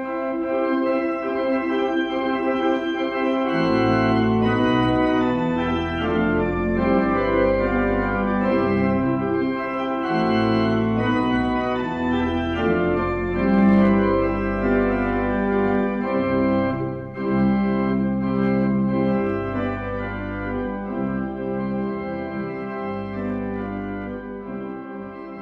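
Organ music: slow sustained chords, with a deep pedal bass coming in about three and a half seconds in, fading gently near the end.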